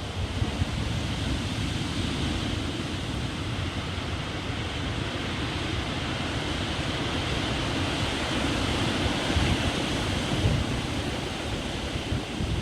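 Rough sea surf washing steadily onto the beach, stirred up by an approaching typhoon, with wind buffeting the microphone in uneven low gusts.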